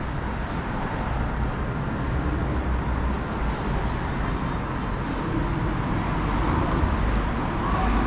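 Steady low rumble of road traffic, an even wash of vehicle noise.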